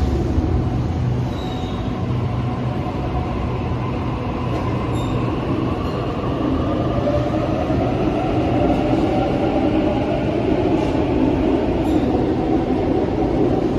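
Sydney electric suburban train running at the station platform. It grows louder from about halfway through, with a hum that slowly rises in pitch.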